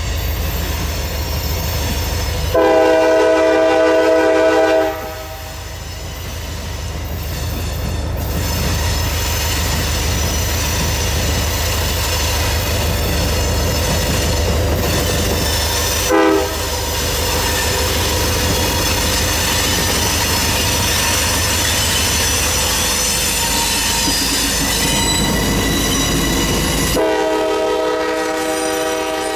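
CSX diesel locomotive 4419 running past with a freight work train, its air horn sounding a chord: a long blast a few seconds in, a short toot about halfway, and another long blast near the end. Between the blasts the engine and rolling cars rumble steadily, with high-pitched wheel squeal from the cars.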